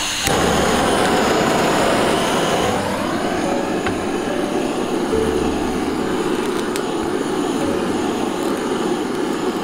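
Handheld gas torch running with a steady rushing flame, blowing onto lump charcoal in a grill to light it.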